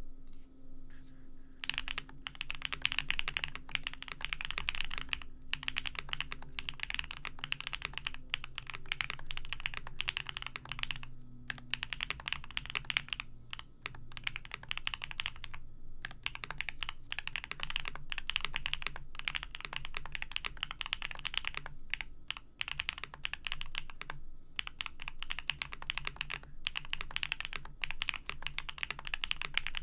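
Keyboard being typed on in fast, continuous runs of key clicks, with short breaks every few seconds.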